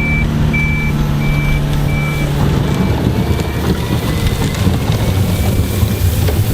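Reversing alarm on heavy roadwork machinery beeping steadily, about three beeps every two seconds, fading away about halfway through, over the continuous low rumble of running engines.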